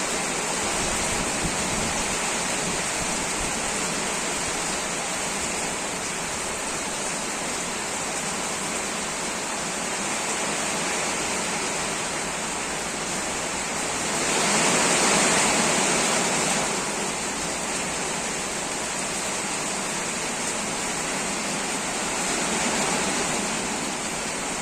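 Heavy rain falling steadily, swelling louder for a couple of seconds a little past halfway.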